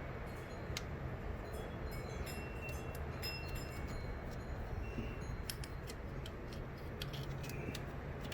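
Scattered light clicks and clinks, with a few brief faint ringing tones, over a steady low hum.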